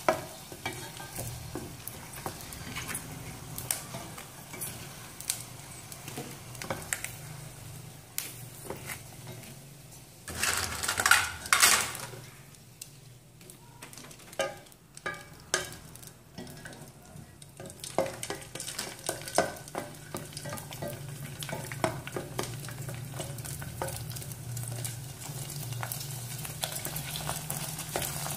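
Hot oil sizzling as dried prawn crackers deep-fry and puff up in a pot, with many small clicks of chopsticks against the crackers and the pot. About ten seconds in there is a loud burst of sizzle and clatter; then the sizzle drops low for several seconds and picks up again as fresh crackers go into the oil.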